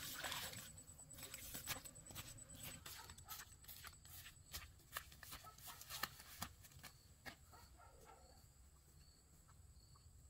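Footsteps and rustling leaves and grass as someone pushes away through dense undergrowth: a run of light crackles that fade out over the first seven seconds or so. Near the end a faint insect call chirps about once a second.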